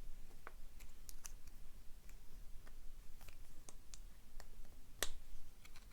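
Scattered small metallic clicks and ticks as a clip remover works at the retaining clip on the back of a euro profile lock cylinder, with one sharper click about five seconds in.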